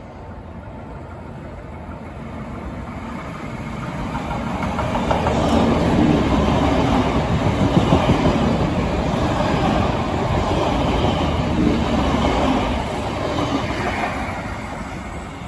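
NSW TrainLink Xplorer diesel multiple unit running through a station without stopping. The noise builds as it approaches, stays loud for about eight seconds while the carriages pass close by with wheel-on-rail noise, then fades as it moves away.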